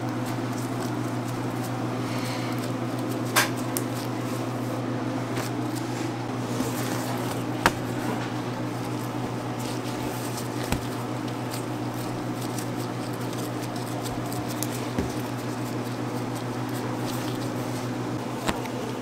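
A steady low machine hum throughout, with a few short sharp clicks and knocks scattered through it, about five in all.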